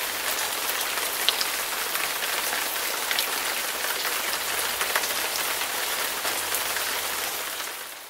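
Steady heavy rain falling, an even hiss with scattered ticks of individual drops, fading out near the end.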